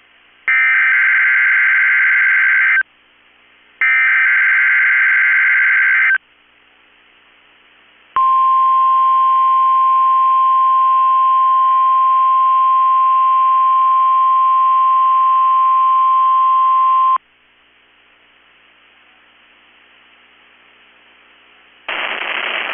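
NOAA Weather Radio test alert: two SAME header data bursts, harsh digital warbling of about two seconds each, then after a short gap the 1050 Hz warning alarm tone, one steady tone held for about nine seconds that cuts off suddenly. Faint radio hiss fills the gaps between the signals.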